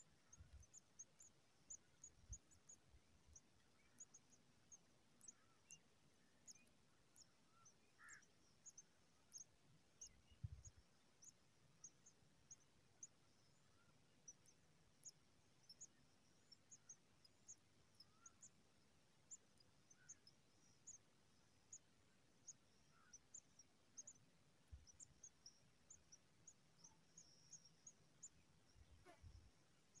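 Near silence in open grassland: faint, rapid high-pitched ticking runs throughout, with a few soft chirps, the clearest about 8 seconds in. Occasional low dull thumps come about 2, 10 and 29 seconds in.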